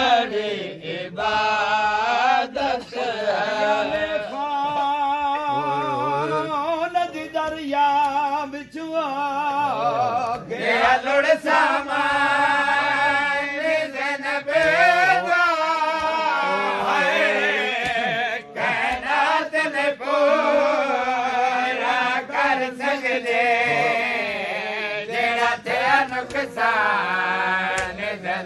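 A male voice chanting a mourning lament (noha) in long, wavering, held lines. Scattered sharp slaps are heard through it.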